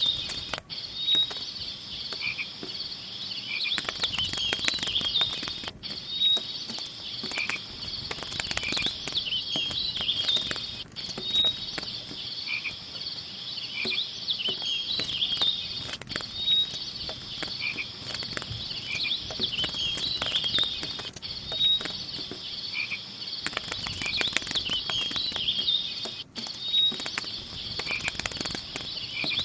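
A steady chorus of chirping frogs and insects, high-pitched calls overlapping without pause. The pattern repeats about every five seconds, as a looped recording does, with clusters of faint crackling clicks at times.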